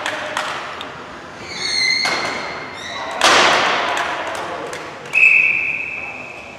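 A sharp thud rings through the sports hall about three seconds in. Near the end comes one long, steady referee's whistle blast lasting about a second and a half. A wavering high squeal comes shortly before the thud.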